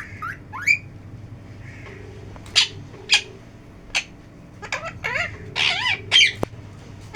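Pet parrot giving a series of short, sharp calls and squawks, a few gliding upward in pitch, coming thicker and faster in the second half.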